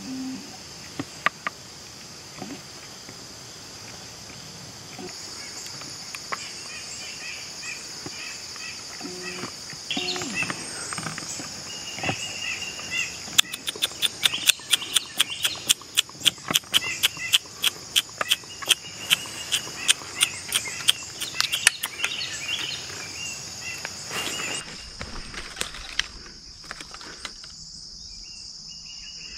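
Steady high-pitched insect chorus in woodland, with a few bird chirps. From about the middle for some eight seconds comes a rapid run of sharp, loud clicks, roughly four a second.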